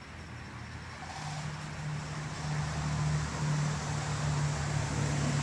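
A low steady motor hum that grows gradually louder, with no clear knocks or clicks over it.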